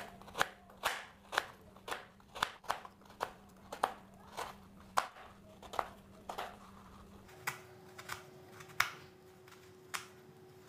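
A plastic knife slicing a block of palm sugar on a plastic cutting board: a run of sharp taps as the blade cuts through and strikes the board, about two a second.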